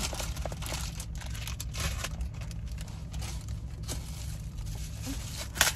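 Rummaging for a plastic fork stowed in the car: rustling and crinkling with many small scattered clicks, and one sharper click near the end, over a steady low hum.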